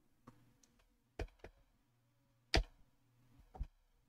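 About five separate sharp clicks from a computer keyboard and mouse, spread out with quiet gaps between them.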